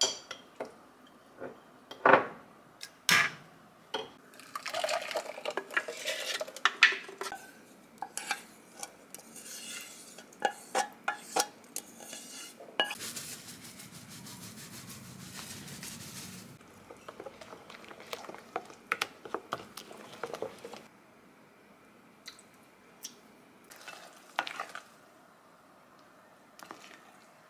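A wooden spoon knocks and scrapes against a stainless steel blender jug and a glass mixing bowl while red pepper flakes are stirred into a thin paste for kimchi seasoning. Sharp knocks come in the first few seconds, a steady rushing noise lasts a few seconds midway, and scattered light clicks of the spoon on the glass follow.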